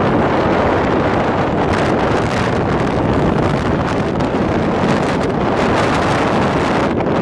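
Steady, loud wind buffeting a phone's microphone on a moving motorcycle, with the rush of road and traffic noise beneath it.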